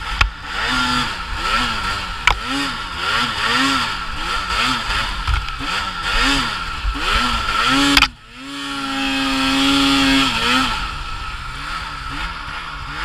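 2018 Arctic Cat M8000 snowmobile's two-stroke twin engine being blipped up and down over and over as the throttle is worked on and off. Just past the middle there is a click and the sound drops off suddenly. It then holds a steady high rev for about two seconds before the on-off revving picks up again.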